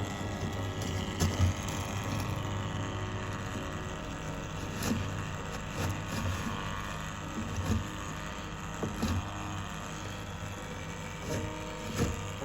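Electric aquarium gravel vacuum's small motor running steadily with a hum, with a few short knocks scattered through.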